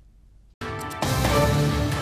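A short near silence, then a news programme's theme music comes in about half a second in and gets louder about a second in.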